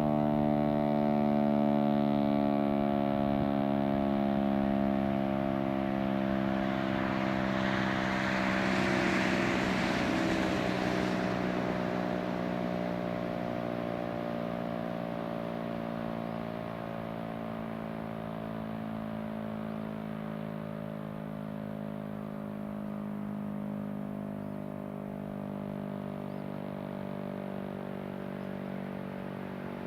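Federal Signal STL-10 outdoor warning siren winding down after its test, its tone sliding slowly lower and fading. A passing vehicle swells and fades about a third of the way through.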